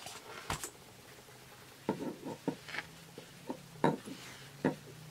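Small, irregular clicks and taps of jewelry being handled and set down on a tabletop, with a faint steady low hum coming in about halfway through.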